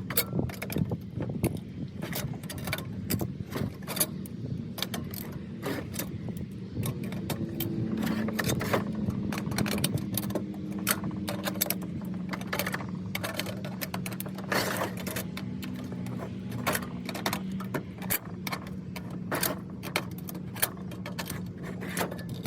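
Pliers gripping and bending small sheet-metal tabs over on a spiral duct, giving frequent irregular metallic clicks and clinks, over a steady low hum.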